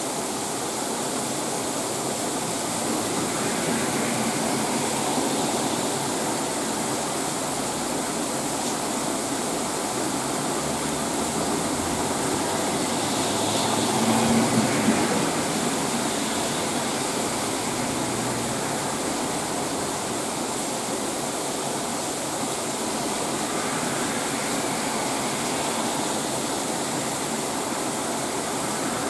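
Heavy rain pouring steadily onto the leaves of dense trees and bushes, an even hiss. About halfway through it grows briefly louder, with a low rumble underneath.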